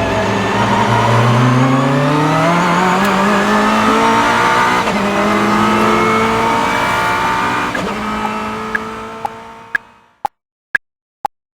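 Car engine accelerating hard through the gears, its pitch climbing in several steps before fading away. Near the end, a steady ticking starts, about two ticks a second.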